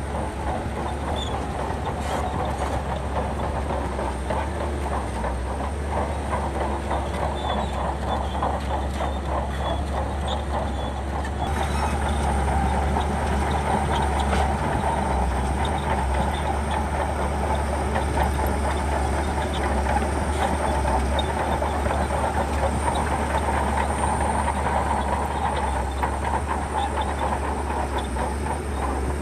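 Shantui crawler bulldozer working: the diesel engine drones steadily under a dense rattling clank of the steel tracks, getting louder about a third of the way in.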